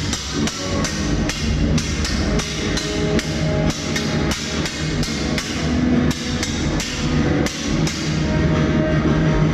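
Music driven by sharp, evenly paced percussion strikes, about three a second, over held tones; the strikes stop about eight seconds in while the held tones continue.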